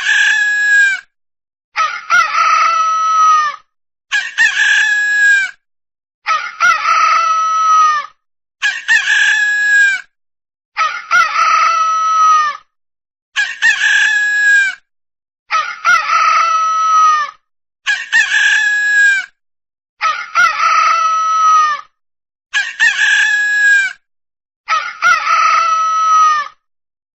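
Rooster crowing a full cock-a-doodle-doo about a dozen times in a row, one crow roughly every two seconds, with dead silence between crows.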